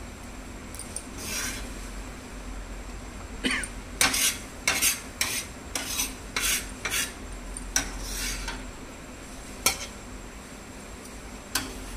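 Metal spatula scraping and turning roasted onion, garlic and green chilli masala on steel: about a dozen short scrapes, most of them between about three and a half and ten seconds in.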